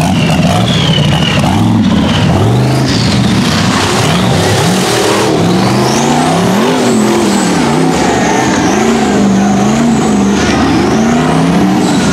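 Rock bouncer buggy's engine revving hard over and over, its pitch swinging up and down in quick swells, with a high whine rising and falling above it.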